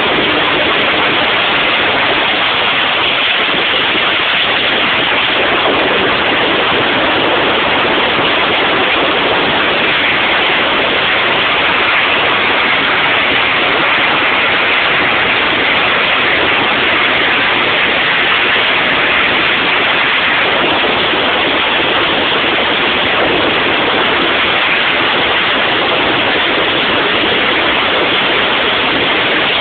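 Pratt & Whitney PT6 turboprop engine running at run-up power: a loud, steady roar of rushing air and engine noise that holds even throughout.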